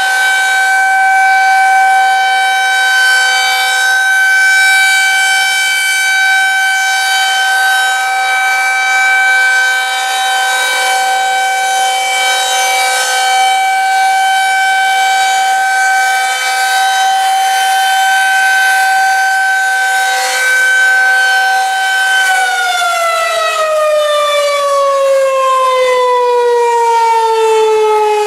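Federal Signal 2001-130AC single-tone rotating siren sounding a loud, steady tone at full speed as its horn turns. About 22 seconds in, the pitch begins a long, smooth fall: the siren has been switched off and is winding down.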